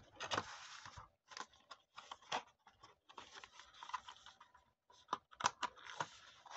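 Cardboard and paper packaging handled by hand: the box's inner tray slid apart, a card and a paper sleeve rustling and scraping, with scattered light taps and clicks. Longer stretches of rustling come about three seconds in and near the end.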